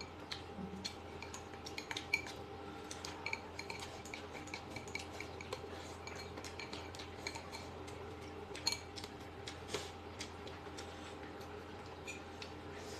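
Chopsticks tapping and clinking against bowls and a metal hot pot in many light, irregular clicks over a faint steady low hum.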